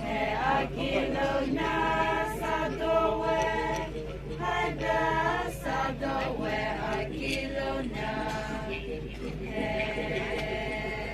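A group of voices singing or chanting together without instruments, in held notes of about a second each with short breaks between phrases.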